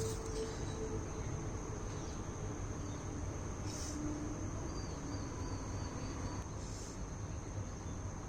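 A steady high-pitched insect trill, like crickets, with a short louder chirp about every three seconds, over a low hum.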